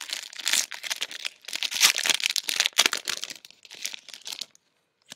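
Foil trading-card pack wrapper crinkling as it is torn open and handled, a rapid run of crackling that stops about four and a half seconds in.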